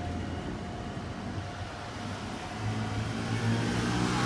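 A motor vehicle's engine running, getting louder from about halfway through.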